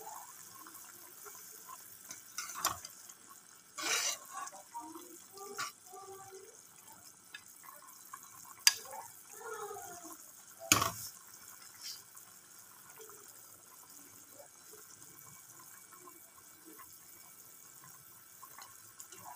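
Pot of instant noodle soup simmering with a low steady hiss, while a metal spoon stirring it knocks sharply against the metal pot about five times.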